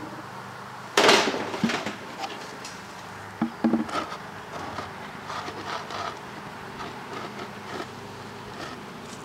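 Honeybees buzzing steadily around an open hive while a wooden board cover is laid on it: one loud knock about a second in, then a few lighter knocks of wood on wood.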